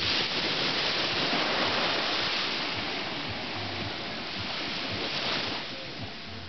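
Surf washing onto a sandy beach: a steady rushing hiss that starts suddenly and fades out near the end.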